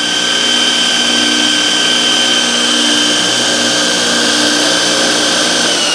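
Tin Knocker HM TAS 75 3" x 79" belt grinder with a 2.2 kW motor running free at full speed: a steady, high-pitched whine over a hiss. At the very end the pitch begins to drop as it is switched off and winds down.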